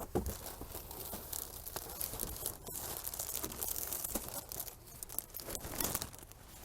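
Plastic flower wrapping crinkling and rustling as it is handled and carried, a steady crackle with many small sharp crackles.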